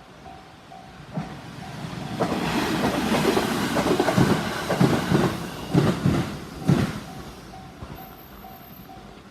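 A JR 373 series three-car electric limited express passes over a level crossing: a rushing rail noise swells and fades, with a series of loud wheel clacks between about four and seven seconds in. The crossing's warning bell rings about twice a second before and after the train goes by.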